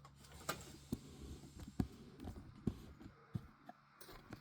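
Faint, scattered knocks and clicks, five or so spaced roughly a second apart, over quiet room noise.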